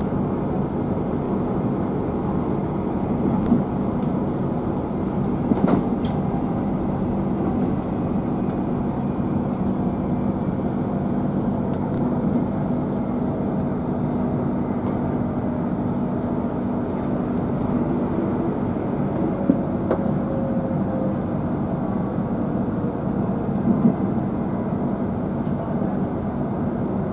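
Interior running noise of a Queensland Rail NGR electric multiple unit: a steady rumble and hum from the wheels and traction equipment, with a few light clicks. About two-thirds through, a faint whine slowly falls in pitch as the train slows for the next station.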